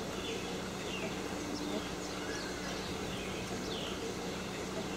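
Birds chirping in short, downward-sliding calls repeated every second or so, over steady outdoor background noise with a low, even hum.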